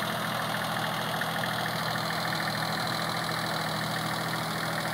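Small 22 hp diesel engine of a VST Mitsubishi Shakti 224 tractor running steadily as the tractor drives slowly across a field with its boom sprayer working.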